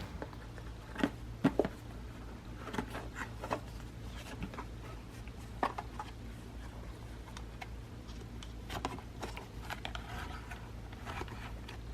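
Scattered light clicks, taps and handling noises of small objects being worked with by hand, a few sharper knocks among them, over a steady low hum.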